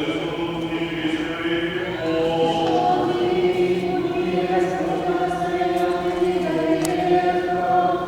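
A small group of voices singing Orthodox liturgical chant in slow, held notes that move in steps from one pitch to the next.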